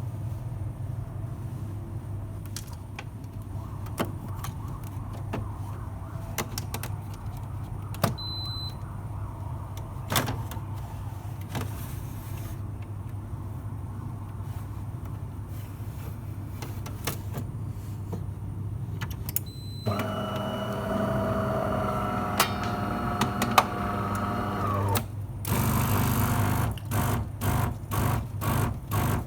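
DeLonghi Eletta Cappuccino coffee machine working: a steady low hum with scattered clicks, two short high beeps, then a motor whining for about five seconds. Near the end comes a loud hissing that pulses about three times a second.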